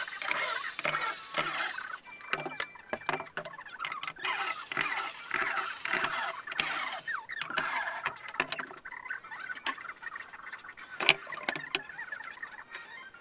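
Cordless electric screwdriver driving screws into the edge of a chipboard panel. The motor runs in several spurts of a second or a few seconds, with short pauses between screws. A single sharp knock comes about eleven seconds in.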